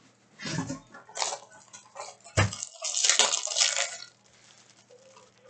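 Baseball card packs and cards being handled: short bursts of crinkling and rustling, a light knock about two and a half seconds in, and a longer rustle around three to four seconds in.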